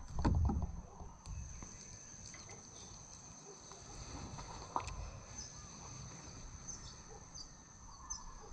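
Steady high-pitched insect trill, with a few short bird chirps in the second half. A brief low rumble comes at the start and a single click about five seconds in.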